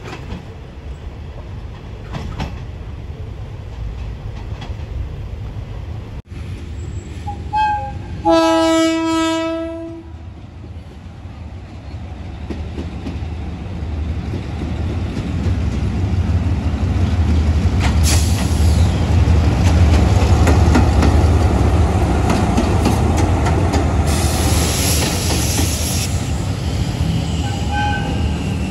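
Railway coaches rolling past on the rails; then a diesel locomotive's horn sounds once for about a second and a half. After that the engine of an approaching Hitachi diesel-electric locomotive of the State Railway of Thailand builds to a loud, low running sound, with short spells of hiss near the end.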